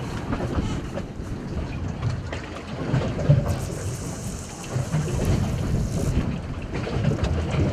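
Strong wind buffeting the microphone on a boat's deck, a low rumble throughout. A high hiss lasts a couple of seconds midway as a sea-fishing rod is cast and line runs off the fixed-spool reel.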